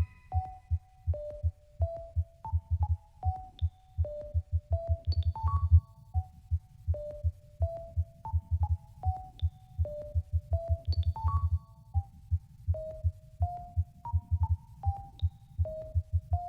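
Synthesized emergency-alert alarm tune: a melody of clean held tones stepping up and down, a new note roughly every three quarters of a second, with occasional high pings, over a fast pulsing low bass.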